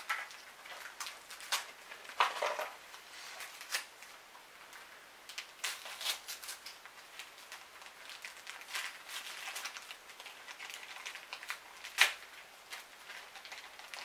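Paper rustling, crinkling and tearing as a small gift is unwrapped, with scattered light clicks and knocks. One sharp click about twelve seconds in is the loudest.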